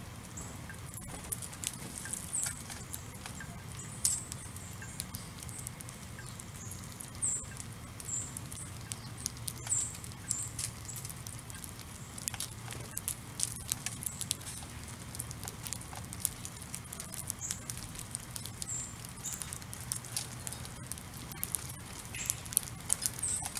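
House sparrows pecking and hopping in scattered birdseed on pavement: many small clicks and taps of beaks and seeds, with short high chirps every second or so.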